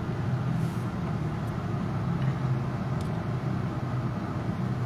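Steady low hum of an MG HS's 1.5-litre turbocharged four-cylinder engine idling, heard from inside the cabin.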